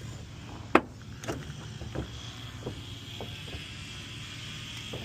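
Scattered knocks and taps from hands working at the truck's third brake light mount, one sharp knock about a second in. A steady low hum runs underneath.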